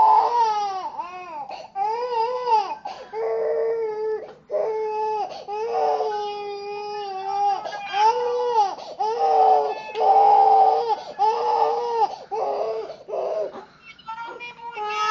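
A baby crying hard: a run of loud wails, each arching up and down in pitch, with short catches of breath between them. The crying eases for a moment near the end, then starts again.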